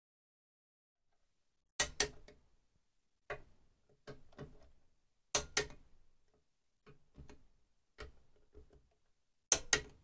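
Long hex driver screwing Loctited bolts into a Stihl MS 660 chainsaw crankcase. Sharp metallic clicks, often in pairs, come about every second and a half, each followed by a short patter of fainter ticks. The clicks start about two seconds in.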